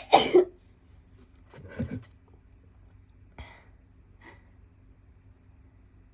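A person sneezing hard right at the start, a rising voiced intake followed by an explosive burst, set off by nasal irritation from a swab test. About two seconds in comes a shorter low voiced sound, then two brief breathy puffs.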